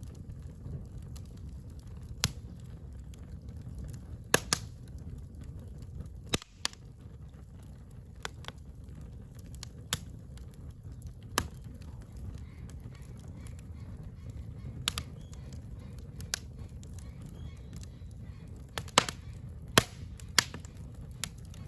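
Campfire crackling, with a dozen or so sharp pops at irregular intervals over a low steady rumble.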